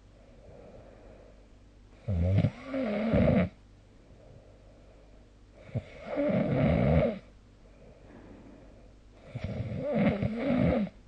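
A person snoring in their sleep: three loud snores about four seconds apart, each lasting a second or so. The first is broken into two parts.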